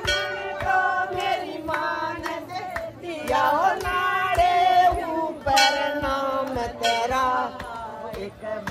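Devotional Hindi bhajan: voices singing a wavering melody over a steady drum beat.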